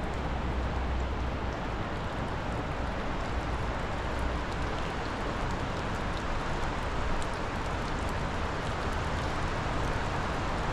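Steady rushing noise of the flooded Schuylkill River running high, with low wind buffeting on the microphone for the first few seconds.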